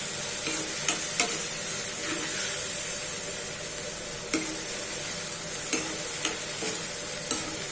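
Garlic and ginger paste with salt sizzling steadily in a hot pan while being stirred, with a spatula clicking against the pan now and then.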